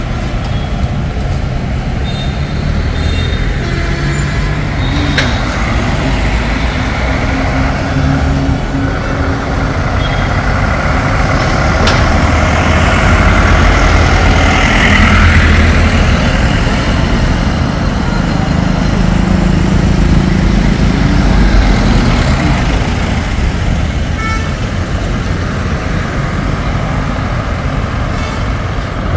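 Road traffic: cars and SUVs driving past at low speed, their engines and tyres a steady rumble that swells as vehicles pass close about halfway through.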